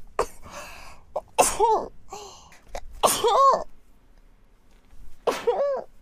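A young woman sneezing three times, about a second and a half to two seconds apart. Each sneeze is a sharp hiss breaking into a short squeaky 'choo' that rises and falls in pitch.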